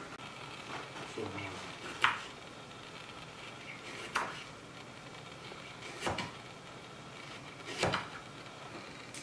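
Knife slicing a radish into rounds on a wooden cutting board: four sharp chops about two seconds apart, each as the blade goes through and meets the board.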